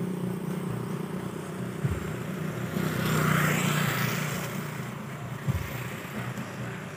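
Motorcycle engine running with road and wind noise while riding along. The engine's hum fades over the first second, and a broad hiss swells and passes about three to four seconds in.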